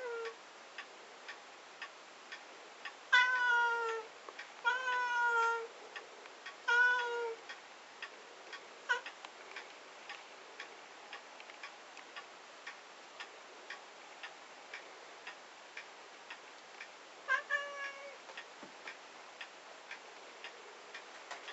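Domestic cat meowing: a single meow at the start, three meows, each dipping slightly in pitch, about three to seven seconds in, and one more near eighteen seconds, asking to be let into the closet. Steady faint ticking runs underneath.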